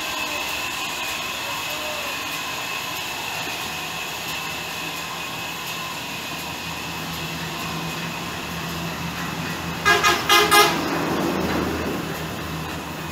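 Horizontal band sawmill running steadily with a high whine as a log on a rail carriage is fed through the blade. About ten seconds in, a horn gives four short toots in quick succession, louder than the saw.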